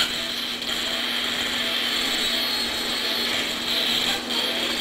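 High-speed otologic surgical drill running steadily with a high-pitched whine, its burr grinding down the last bony ridges of the inner-ear labyrinth.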